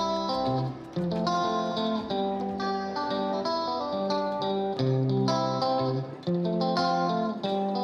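Background music: a plucked guitar melody over a low bass line.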